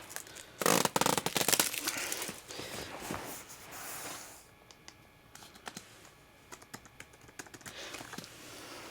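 Unboxing packaging being handled: rustling, crinkling and scraping of wrapping and box parts, busiest in the first three seconds or so, then quieter with scattered small clicks and taps.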